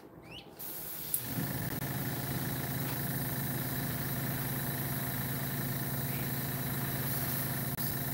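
Small airbrush compressor switching on about a second in and running with a steady hum, over a steady hiss of air.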